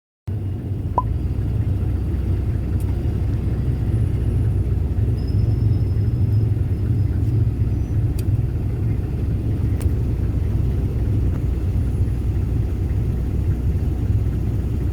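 Steady low vehicle rumble, starting abruptly just after the start and holding level throughout.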